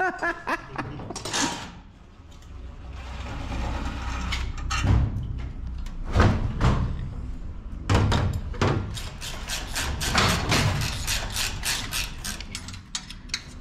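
Hand tools and metal engine parts clinking and knocking as a race car engine is worked on, with a quick run of clicks from about eight seconds in.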